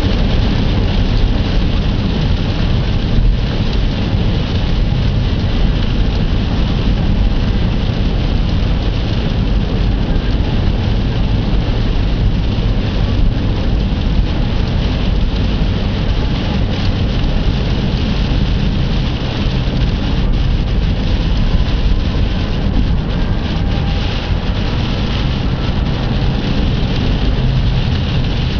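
Typhoon wind and rain: a loud, steady rushing noise with a deep rumble of wind buffeting the microphone.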